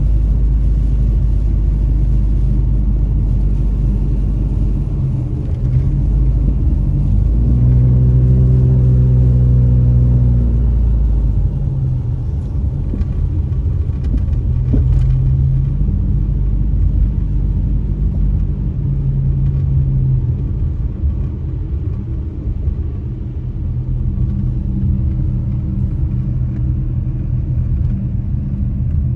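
A car driving, heard from inside the cabin: steady low engine and road rumble, with the engine's hum coming up more strongly for a few seconds about eight seconds in.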